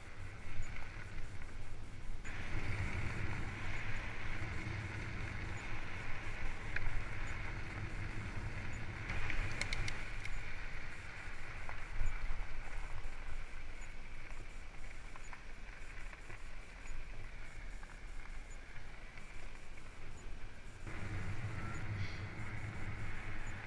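Fat bike rolling along a tarmac path: a steady rumble of tyre noise mixed with wind on the microphone, with a few light clicks about ten seconds in.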